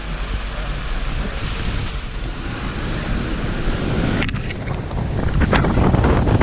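Wind on an action camera's microphone: a loud, steady rushing noise, heaviest in the low end. About four seconds in it changes and turns gustier, with sharp short buffets.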